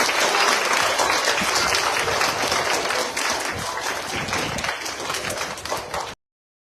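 A crowd of schoolchildren applauding, a dense patter of many hands clapping that slowly dies down. It stops abruptly about six seconds in.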